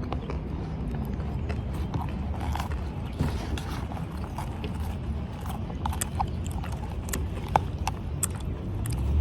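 Someone chewing crunchy food (salad and chips) close to the microphone: irregular crisp crunches and clicks over a steady low rumble.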